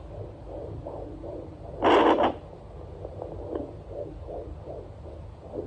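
Handheld fetal Doppler at 22 weeks picking up the baby's heartbeat through its speaker: quick pulses about three a second, mixed with the mother's own heartbeat. About two seconds in there is a loud rubbing rush as the probe shifts on the gel.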